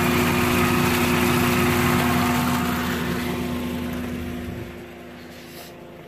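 Toyota 2ZZ-GE 1.8-litre four-cylinder engine running at a steady speed, growing quieter from about three seconds in. It is being run warm to bleed trapped air out of the cooling system after a thermostat replacement.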